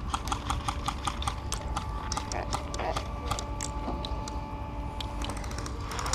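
Airsoft gunfire: a rapid, irregular run of sharp clicks and pops, densest in the first few seconds and picking up again near the end, over a steady hum.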